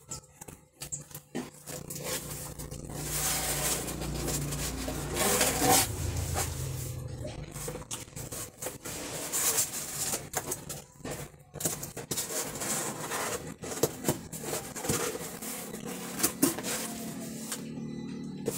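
Cardboard box and its packaging being handled and rummaged through: rustling with many small clicks and knocks.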